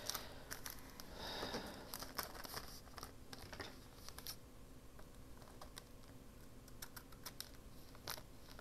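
Faint, scattered light clicks and taps of paper and craft tools being handled on a work table, with a brief rustle of paper about a second and a half in.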